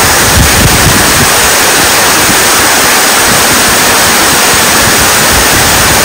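Waterfall's falling water rushing, a loud, steady, even wash of noise.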